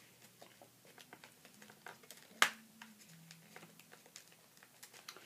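Hands working at an action figure's plastic packaging and twist ties: scattered light clicks and crinkles, with one sharp click about two and a half seconds in.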